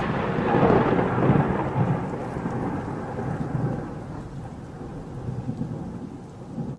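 A long roll of thunder with rain, slowly dying away.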